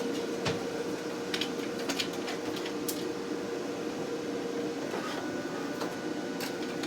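Laser cutter running with a steady hum, with scattered light clicks and taps as small cut pieces are handled.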